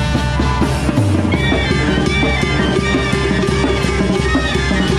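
Mexican banda playing live: trumpets, trombones and saxophones over a drum kit with cymbals and congas, in a steady dance rhythm.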